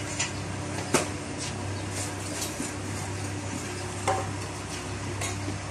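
A steady low hum with a few sharp clicks and knocks over it, the loudest about a second in and just after four seconds in.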